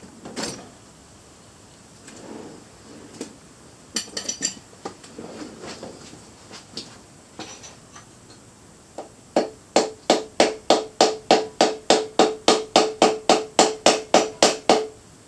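Metal tools clinking and knocking against a big-block engine's bottom end, then a fast, even run of about twenty ringing hammer blows on metal, about four a second.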